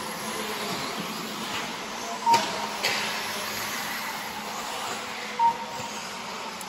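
4WD RC buggies racing on the track, a steady mix of motor whine and tyre noise. Two short beeps sound about three seconds apart, with a sharp click just after the first.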